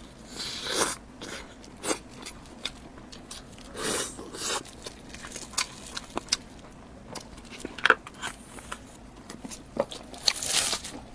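A person eating close to the microphone: three louder crunchy bites, about a second in, around four seconds and near the end, with chewing and small mouth clicks between.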